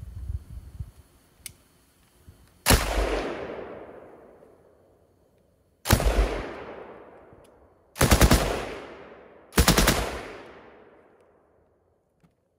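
Châtellerault FM 24/29 light machine gun firing four short bursts of automatic fire in 7.5×54mm French, the later bursts with several shots each. Each burst is followed by a long echo that dies away over a second or two.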